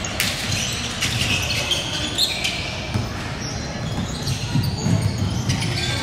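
Indoor court game sounds: sneakers squeaking on the floor and a ball bouncing, with echo from a large gym.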